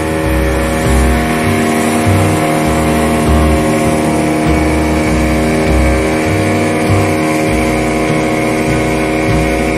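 A small boat's engine running steadily under way, with water rushing past the hull. Background music with a bass line plays underneath.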